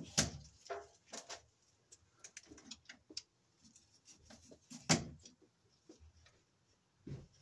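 Irregular clicks, knocks and rustles of 12/2 electrical cable and its wires being handled and worked into a steel breaker panel, with two louder knocks about a quarter second in and about five seconds in.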